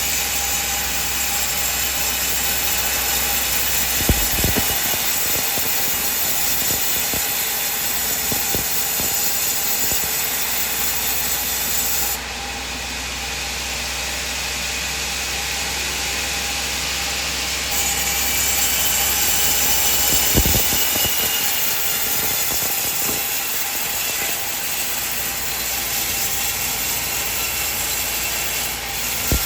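Sawmill machine running and sawing coconut wood: a steady, loud machine noise with a sharp knock about four seconds in and another about twenty seconds in. The sound turns duller for several seconds around the middle.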